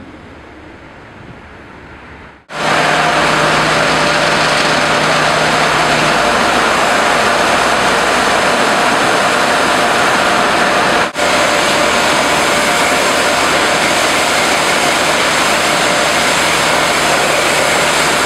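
Cars idling at low level, then from about two and a half seconds in a loud, steady rush of car wash equipment: high-pressure water spray and machinery in the wash bay.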